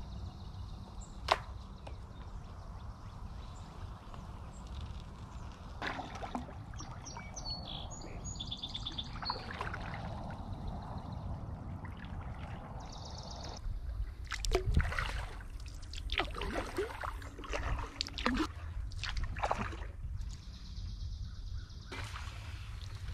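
Kayak paddle strokes sloshing and dripping in calm river water, with birds singing short rapid trills in the reeds. A sharp knock comes a little over a second in, and a run of louder splashes falls in the second half.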